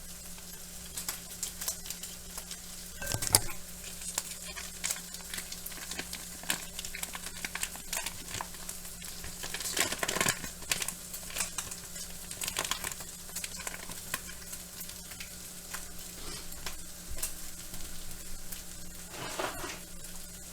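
Bacon and onions frying in pans on the stove, a steady crackle of popping fat, with one sharp knock about three seconds in and louder spells of sizzling around the middle and near the end, over a steady low hum.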